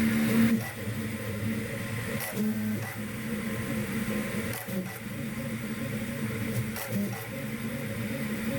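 CoreXY 3D printer's stepper motors running through print moves: a busy mechanical whine whose pitch jumps and shifts every fraction of a second as the head changes direction.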